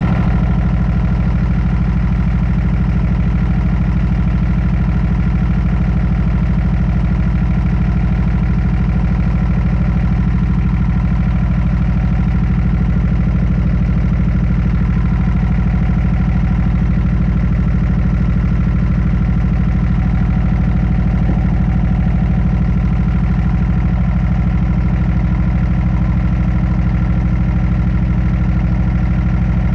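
Hino truck's diesel engine idling steadily, its air compressor running while the brake air pressure fails to build, which the owner puts down to an air line frozen with ice.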